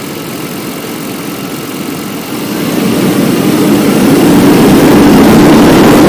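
1992 GMC 5.7-litre TBI V8 running at idle, then revved up about two and a half seconds in and held at higher revs, growing steadily louder.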